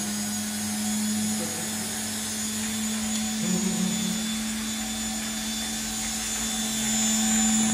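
Electric dog nail grinder running with a steady motor hum and hiss while a dog's nails are ground down.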